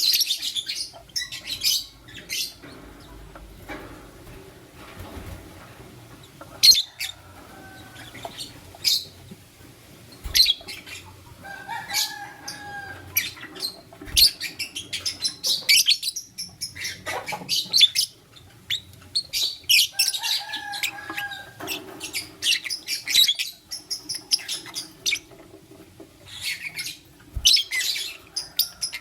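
A pair of lovebirds, one a lutino, chirping in rapid high-pitched bursts with short pauses between them. Twice, a lower drawn-out note is heard among the chirps.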